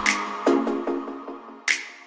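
Electronic background music, with repeated synth notes and two sharp percussive hits.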